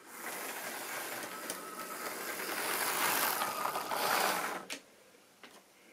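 A model train running on the layout's track close past the microphone, its mechanical running noise starting abruptly, growing louder to a peak about four seconds in, then falling away suddenly as it goes past.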